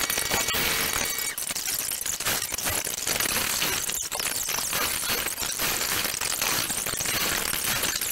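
Red coloured pencil scratching on paper in quick back-and-forth shading strokes, close to the microphone. A steady high whine stops about a second in.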